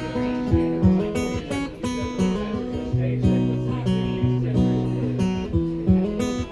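Gibson J-45 acoustic guitar strummed in a steady rhythm, chords ringing and changing between the sung lines.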